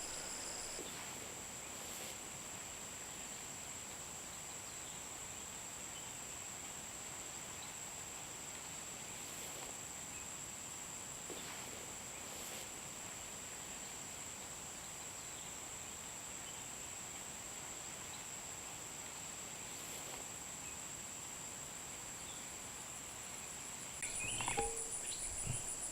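Insects trilling in a continuous high-pitched drone, with a second, faster-pulsing trill coming in about two seconds before the end.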